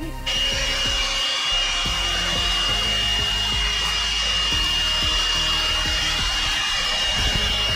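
Handheld vacuum cleaner running steadily: a rush of air with a thin, high, steady whine, cutting in suddenly right at the start.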